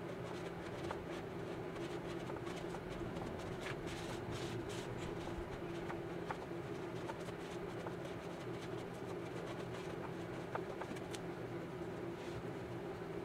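Faint rubbing and a few light clicks of a cloth rag wiping inside a motorcycle's rear fender, over a steady low hum.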